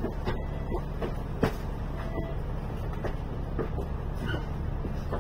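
Alexander Dennis Enviro 500 MMC double-decker bus idling while stopped, heard from on board as a steady low engine hum. Light clicks and rattles come and go, with one louder knock about a second and a half in.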